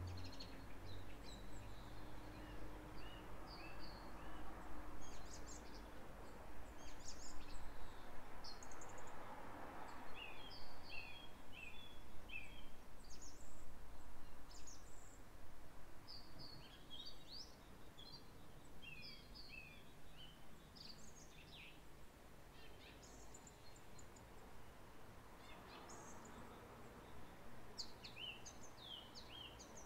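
Small songbirds chirping and twittering in short high calls, with a quick run of repeated chirps about a third of the way in. Under them is a soft rushing background that swells twice.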